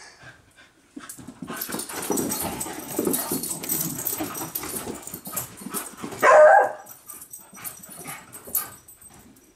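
A Bedlington terrier and another dog play-fighting: growling and scuffling on the rug, with one short, loud bark about six seconds in.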